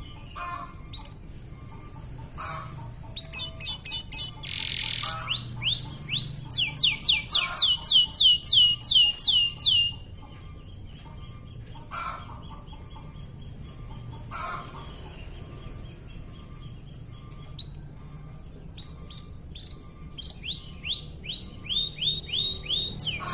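Domestic canary singing in bouts of fast trills, each a rapid run of repeated falling whistled notes. The bird pauses in the middle, with only scattered notes.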